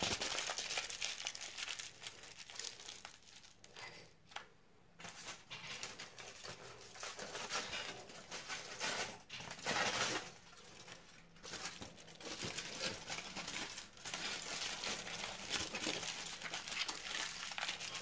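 Aluminium foil crinkling and crumpling in uneven stretches, with short pauses, as it is wrapped around the ends of a wooden stick.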